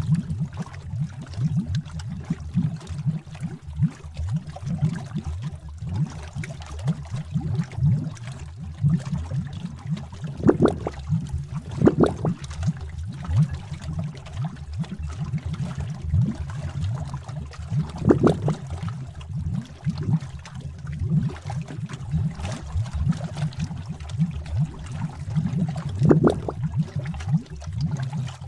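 Bubbling witch's-cauldron sound effect: thick liquid bubbling in a continuous low blubbing, with a bigger bubble popping now and then, four times.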